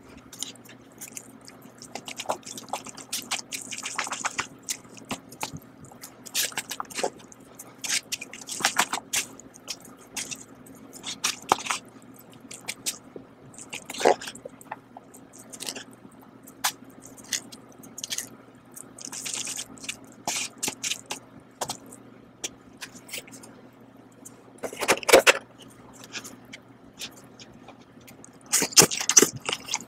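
Rustling, crinkling and sharp clicks of Doll instant bowl noodle cups, their peeled-back lids and seasoning sachets being handled, over a faint steady hum. Louder bursts come about 25 seconds in and again near the end.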